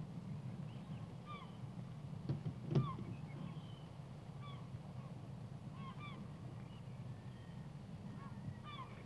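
Birds calling over the water, short repeated calls about one a second, over a steady low rumble, with a sharp knock about three seconds in.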